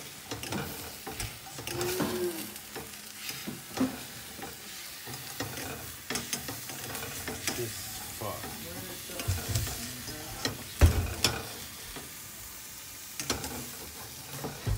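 Eggs sizzling in a stainless-steel frying pan while a metal slotted spatula scrapes and taps against the pan, working loose egg stuck to the bottom. There is one louder knock about eleven seconds in.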